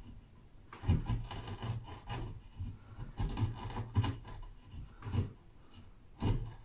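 Wood chisel paring shavings off the end of a pine board: a run of short scraping strokes, with a brief pause before the last one.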